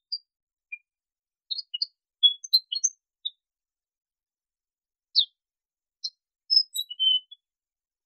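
Arabian golden-winged grosbeak (Rhynchostruthus percivali) calling: short, high chirping notes in a twittering burst about two seconds in, a lone note after a pause, then another quick run of chirps near the end.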